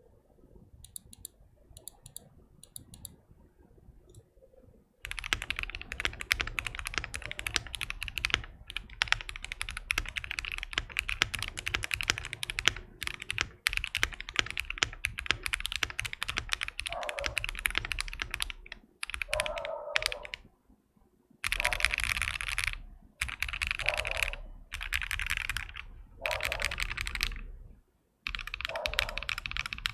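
Typing on a Keychron Q1 mechanical keyboard with lubed Gateron Ink Black V2 linear switches and lubed Durock V2 stabilisers, its case damped with polyfill and foam. It starts with a few faint keystrokes, becomes a continuous fast run of typing about five seconds in, and in the second half breaks into short bursts with brief pauses.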